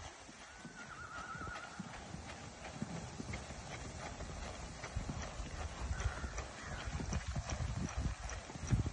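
Hoofbeats of an Andalusian stallion moving under saddle on soft arena sand, a run of irregular muffled thuds.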